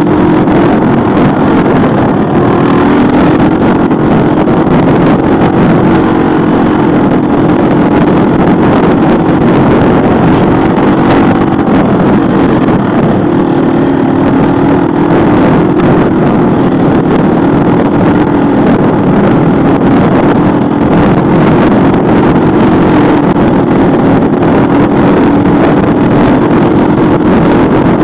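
Baja SSR200 dirt bike's engine running under way at fairly steady revs, with small rises and dips in pitch as it rides the trail.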